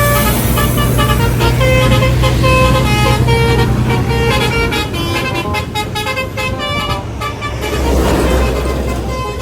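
Bus telolet horn playing a quick tune of short notes, with a steady engine hum underneath. A burst of hiss comes about eight seconds in.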